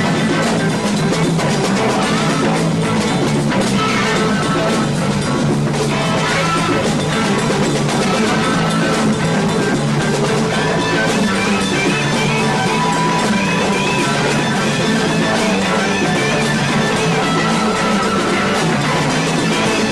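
Rock band jamming: guitar playing over drums, continuous and steady in loudness.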